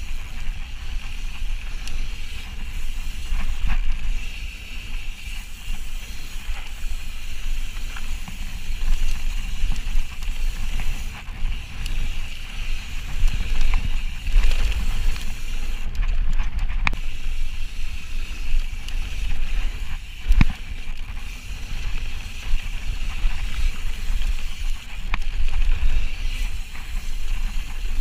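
Ibis Ripley mountain bike descending a dirt trail at speed: steady tyre rumble on the dirt with wind buffeting the microphone, and a couple of sharp knocks from the bike over bumps, the clearest around two-thirds of the way through.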